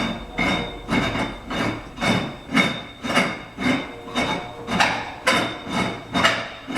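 Threaded post of a carousel gumball machine stand being screwed on by hand, the threads grinding in a regular scrape about twice a second as the post is turned.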